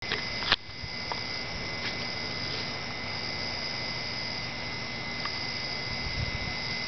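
Steady background hiss with a constant thin high tone running through it, and a single sharp click about half a second in.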